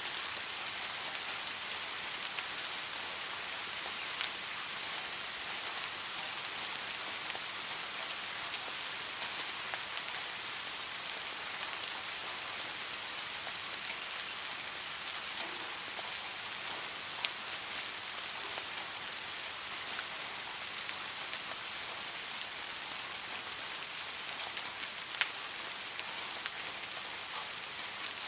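Steady rain falling, a dense even hiss with a few louder single drops ticking out of it now and then.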